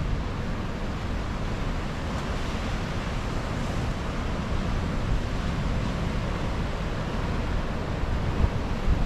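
Ocean surf washing in as a steady rush, with wind buffeting the microphone as an uneven low rumble.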